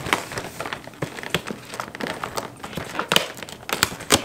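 Cardboard and plastic packaging crinkling and crackling as a cardboard advent calendar door is opened and the wrapped item inside is handled, with irregular sharp crackles that bunch up near the end.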